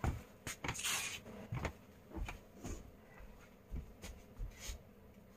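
Footsteps on a hard floor passing close by, with a brief rustle about a second in, then faint, irregular taps and knocks.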